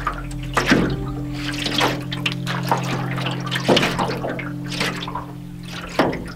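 Small lake waves lapping and slapping against a canoe's hull in irregular splashes, about one every half second, over a steady ambient music drone.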